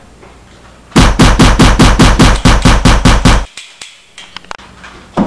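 Machine-gun fire sound effect: a rapid burst of about a dozen shots, around five a second, lasting about two and a half seconds and starting about a second in. A few faint clicks follow.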